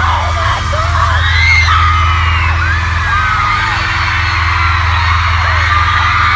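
A large concert crowd of fans screaming and cheering, many high shrieks overlapping, over a steady low droning note from the PA.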